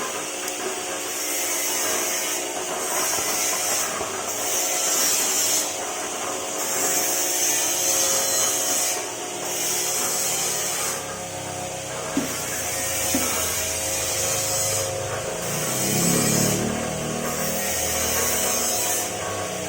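Motor-driven corn emping flattening machine running steadily. A rasping noise comes and goes over the hum every second or so.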